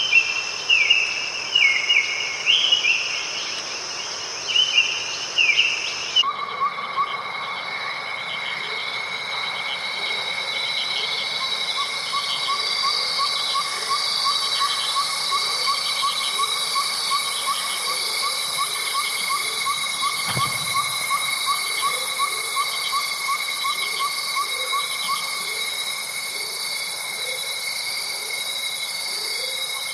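Nature ambience of a steady insect chorus with repeated falling bird calls, which cuts abruptly about six seconds in to a different chorus of steady insect trills and fast, evenly pulsing chirps. A single low thump comes about two-thirds of the way through.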